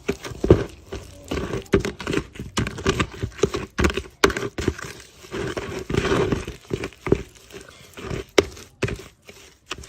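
Stirring stick knocking and scraping in a plastic bucket while the soap ingredients are mixed: a run of irregular knocks and clatters, several a second.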